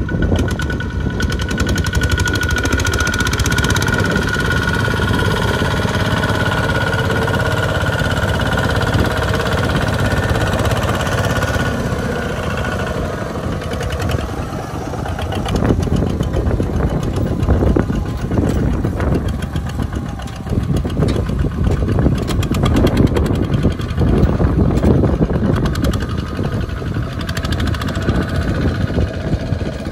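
Two-wheel walking tractor's single-cylinder diesel engine running under load while pulling a loaded trailer through deep mud. Steady in the first half, rougher and more uneven from about thirteen seconds in.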